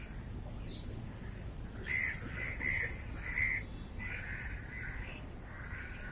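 A bird calling in a run of short, repeated calls, about six of them from two seconds in onward, over a steady low rumble.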